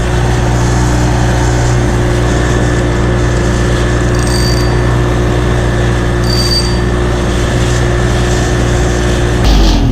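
Small gasoline engine powering a boat, running steadily at a constant speed. Near the end it cuts off with a thump and winds down: the engine has stalled.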